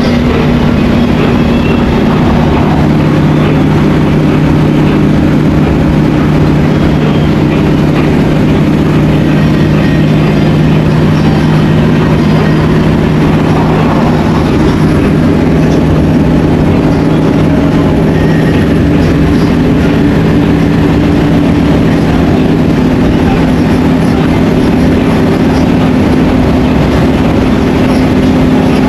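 Coach engine droning steadily at cruising speed with road and tyre noise, heard from inside the driver's cab.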